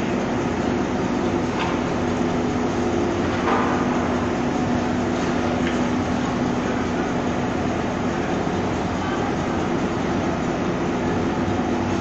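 Truck-mounted mobile crane's diesel engine running steadily with a constant low hum while it lifts an overhead-crane bridge girder.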